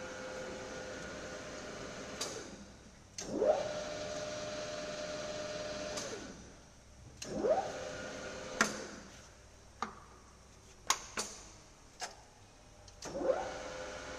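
Schaublin 125 C lathe spindle being started and stopped several times. Each start is a rising whine that settles into a steady hum, and each stop runs down. Sharp clicks, several of them near the middle, come between the runs.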